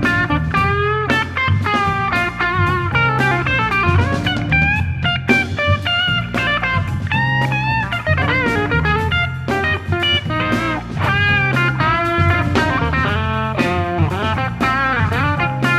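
Live band music led by a Stratocaster-style electric guitar playing a quick melodic line with bent and wavering notes. Low bass notes and a drum kit play underneath.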